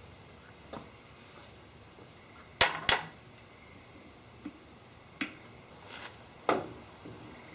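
Metal clinks and knocks of steel machine parts and hand tools being handled and set down on a milling machine's cast-iron table. There are two sharp clinks close together about two and a half seconds in, then a few lighter taps.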